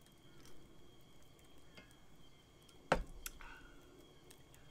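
Quiet scene with scattered faint ticks, then one sharp click about three seconds in, followed closely by a lighter one. A faint steady high tone runs underneath.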